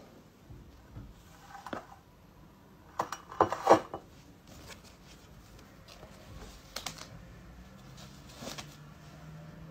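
Handling noises: a few light knocks and clicks, the loudest cluster about three to four seconds in, as a ceramic mug is moved on a glass tabletop and a paper face mask is picked up and handled. A faint low hum comes in near the end.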